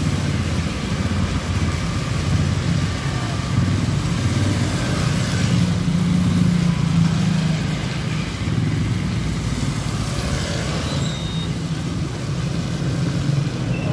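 Motorbikes and a car passing on a wet road: a steady engine hum, with tyre hiss on the wet surface swelling as a minivan goes by about five seconds in and again as a motorbike passes near ten seconds.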